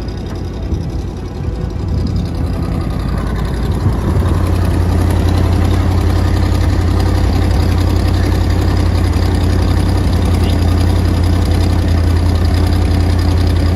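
A vehicle engine running at low revs, getting louder and then holding a steady low hum from about four seconds in.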